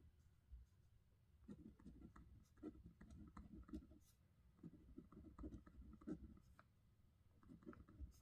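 Faint handwriting on paper: short scratching strokes in bursts, broken by brief pauses as the writer moves on between words.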